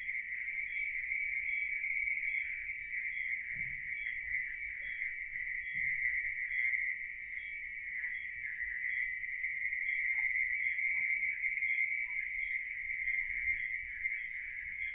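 A steady, high-pitched chorus of night insects, with a faint regular pulse about twice a second.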